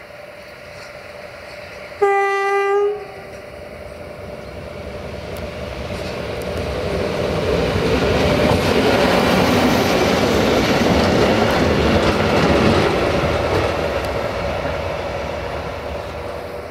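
A self-propelled rail maintenance vehicle gives one short horn blast, about a second long, two seconds in. Then its engine and its wheels on the rails grow louder as it passes close by, and fade as it moves away.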